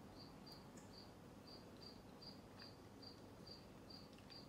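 A cricket chirping faintly and steadily, short high chirps about two to three a second, over quiet room tone.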